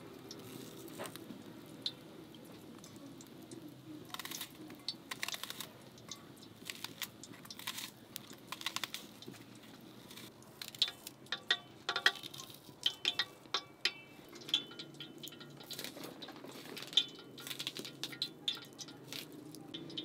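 A small knife cutting pieces off a raw onion held in the hand, the pieces dropping into a steel bowl: crisp snaps and clicks, some with a brief metallic ring, sparse at first and coming much more often in the second half.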